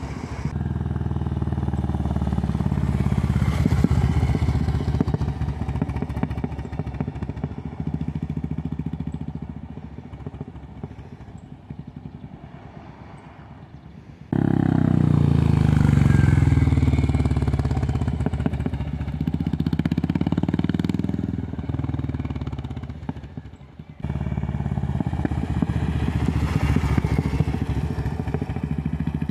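Royal Enfield Meteor 350's single-cylinder engine through its Customer exhaust, the bike passing on a street as it decelerates. The exhaust beat slows and drops in pitch. It comes in three separate passes, with sudden cuts about 14 and 24 seconds in.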